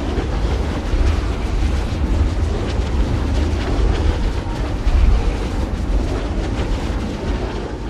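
Strong wind blowing in uneven gusts, with a heavy low rumble.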